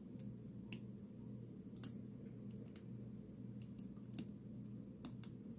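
Scattered faint, irregular clicks of a lock pick and tension wrench working the pin stack inside an American 700 pin-tumbler padlock, one click a little louder about two seconds in, over a steady low hum.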